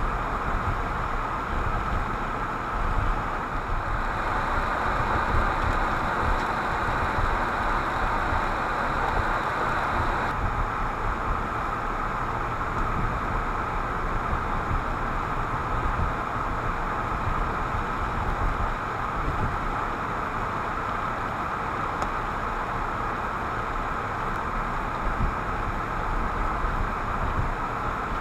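Steady road noise inside a moving car, tyres on a snow-covered road with the engine hum beneath, picked up by a windshield dash camera.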